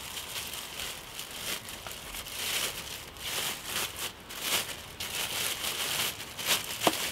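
Thin clear plastic bag crinkling and rustling in a series of short crackles as it is pulled over a plant pot and bunched around it by hand.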